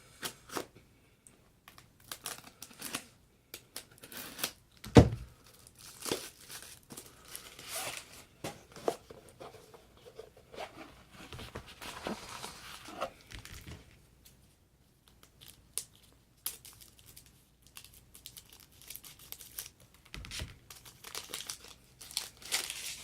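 Trading-card packaging being torn open and crinkled by hand: irregular tearing and crackling of wrap, with a sharp knock about five seconds in.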